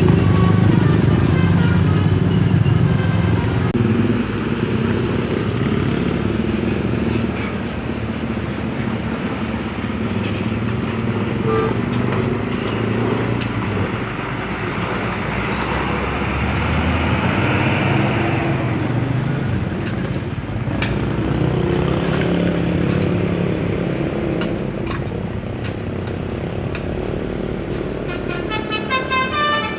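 Large bus engine running, with a multi-tone telolet horn tooting a short tune of rapid notes early on and a rising swell of pitch about halfway through.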